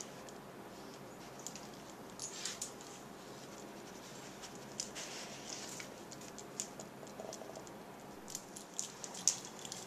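A dog's jaws snapping and chattering, her teeth clicking together in faint, irregular clicks that come in small clusters, with a denser run near the end.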